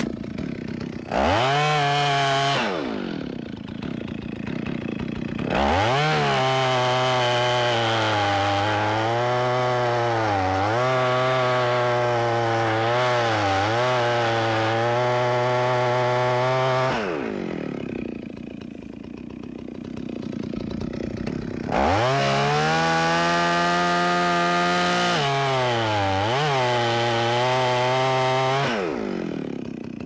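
Chainsaw sawing into a standing tree to make the undercut: the engine revs to full throttle three times, a short blip about a second in and then two long cuts, with the engine note dipping briefly as the chain bites, and drops back to idle between them.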